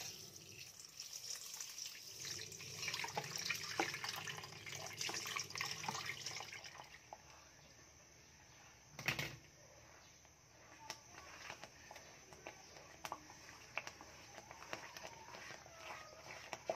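Water poured from a plastic tub through sago pearls in a stainless steel mesh strainer, splashing into the bowl beneath for about the first seven seconds. A single sharp knock follows about nine seconds in, then a wooden spatula stirring sago in a wok, with faint scrapes and clicks.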